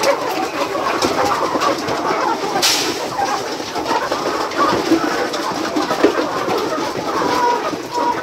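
A large flock of farmed chickens calling all at once, a dense, continuous chorus of many short overlapping calls.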